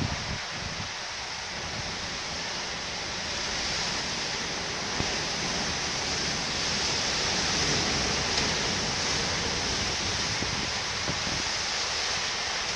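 Storm wind gusting with heavy rain, a steady rushing noise that grows louder around the middle. Gusts buffet the microphone now and then with a low rumble.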